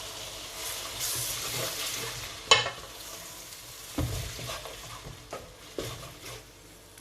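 Onions and mixed peppers sizzling in hot oil in a pan while curry sauce is added and stirred in, with a sharp clack about two and a half seconds in and a few knocks of the utensil against the pan. The sizzle dies down toward the end.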